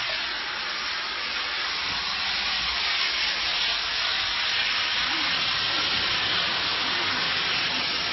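Steam cleaner lance jetting steam onto conservatory roof panels: a steady hiss.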